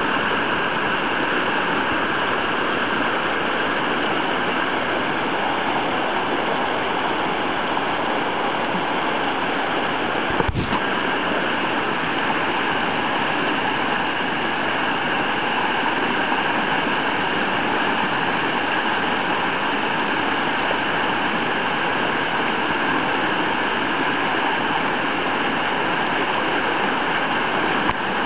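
Whitewater river wave rushing steadily, a continuous churn of fast water breaking over the standing wave. A single brief knock about ten seconds in.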